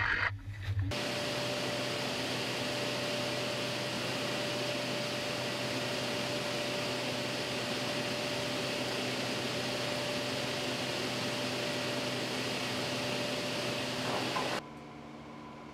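Steady mechanical hum and hiss of sawmill machinery running, with one constant tone over it. Near the end it drops abruptly to a quieter steady hum.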